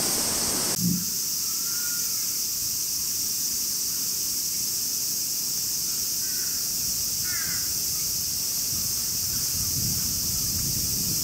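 A steady high-pitched insect drone, with a short low thump about a second in and a few faint bird calls around the middle.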